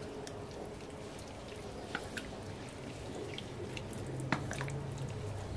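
Wooden spatula stirring boiled chickpeas through a thin, wet masala gravy in a kadai: soft wet squelching with scattered light ticks, the sharpest about four seconds in.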